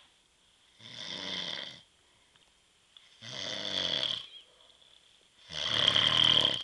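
A man snoring in his sleep: three snores about two seconds apart, each lasting about a second, each louder than the one before.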